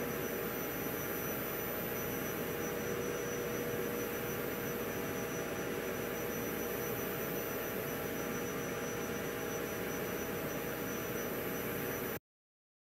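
Steady background hiss with a faint steady tone, no distinct event; it cuts to dead silence for a moment near the end.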